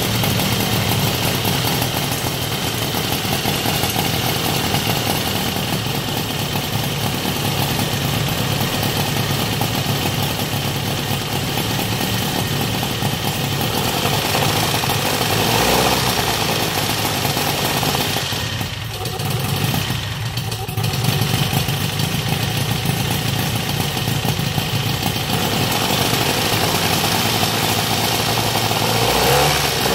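ZDZ 500cc four-cylinder two-stroke aircraft engine running on a test stand and spinning its propeller, on its first test run. It holds a steady speed, drops off briefly twice about two-thirds of the way through, and revs up near the end.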